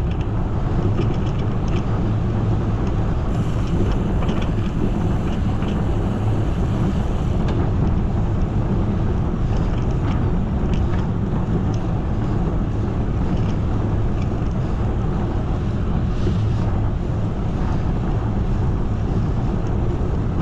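Steady wind rushing over the microphone of a cyclist's camera while riding, with a constant low rumble of air noise.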